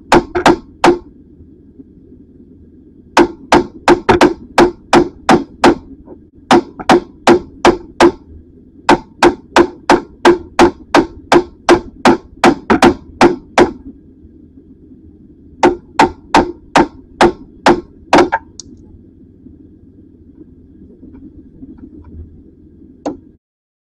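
Hammer striking an Allen (hex) key socket, metal on metal, to drive it into a bolt on a car's front brakes that will not turn. The sharp blows come in runs of several at about three a second with short pauses between, and stop about three-quarters of the way through.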